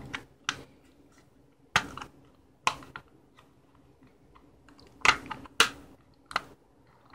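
Irregular sharp plastic clicks and knocks as a computer mouse's parts are handled and fitted back together.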